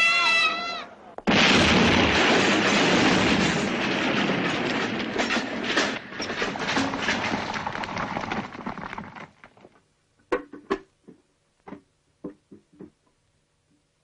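Film trailer soundtrack: a high-pitched shout ends just under a second in. A loud crashing rush of noise then sets in suddenly and lasts about eight seconds before dying away. It is followed by a scattering of single sharp knocks.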